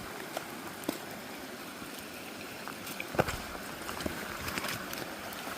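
Steady rush of running water, with scattered small clicks and knocks and one sharper knock about three seconds in.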